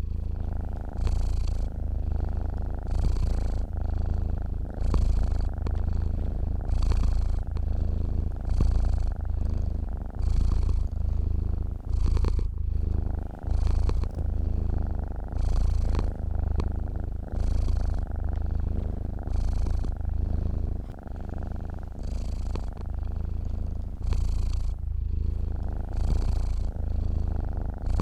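Domestic cat purring steadily and close up, a low rumbling purr that swells and eases in a regular rhythm about once a second.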